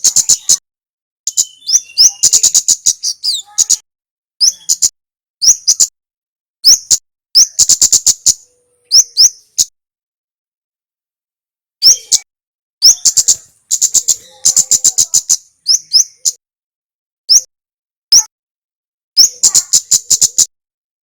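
Kemade songbird calling loudly: clusters of rapid, sharp high chips mixed with short rising notes, broken by brief pauses and one longer silence near the middle.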